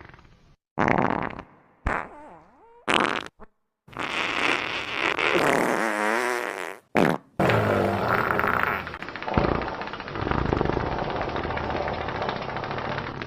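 Fart sound effect: a run of flatulence sounds. There are several short farts in the first few seconds, one dipping and rising in pitch. From about four seconds in, long, drawn-out farts with a wavering pitch run almost without a break.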